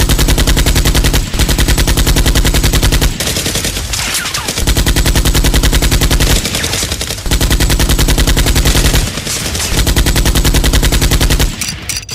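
Rapid automatic-gunfire sound effects laid over toy blaster shooting: long bursts of machine-gun fire with short breaks, stopping near the end.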